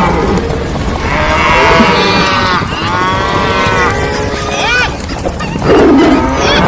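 Animal stampede sound effect: many overlapping animal calls, cattle-like lowing among them, over a steady low rumble of running hooves. A loud, deep call comes near the end.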